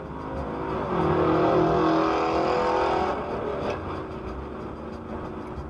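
Car driving on a highway, heard from inside: engine and road noise with a steady pitched tone that swells about a second in and fades after about three seconds.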